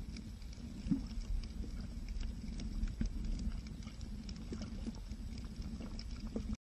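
Underwater noise picked up by the camera: a steady low rumble with scattered faint clicks and ticks. The sound cuts off suddenly near the end.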